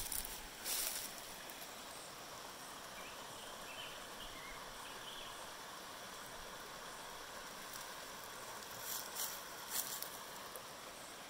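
Faint, steady rush of a shallow rocky creek, with a few brief rustles or footfalls just after the start and again near the end.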